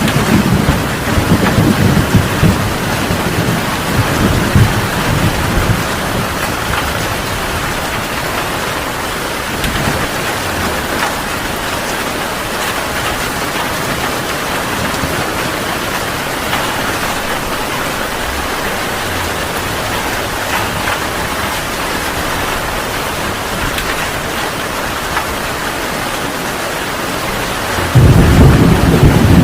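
Heavy rain pouring steadily, with a rumble of thunder that rolls and fades over the first few seconds and a new thunderclap breaking in suddenly near the end.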